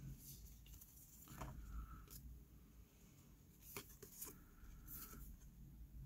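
Near silence, with faint rustling and a few light ticks of cardboard trading cards being flipped through by hand.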